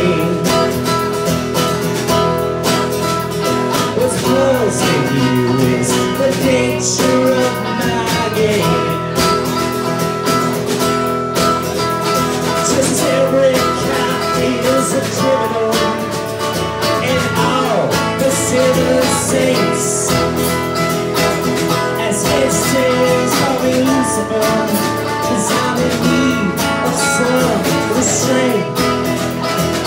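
Live amateur rock band playing a cover song, with electric and acoustic guitars, drums and vocals.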